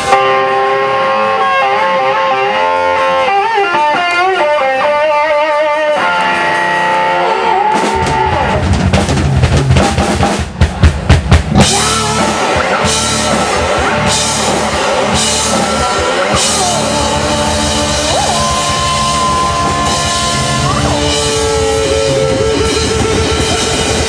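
Live rock band playing: electric guitar alone at first with bending, wavering notes, then drums and bass guitar come in about eight seconds in. A run of sharp drum hits follows around ten to eleven seconds, and the full band plays together from about twelve seconds on.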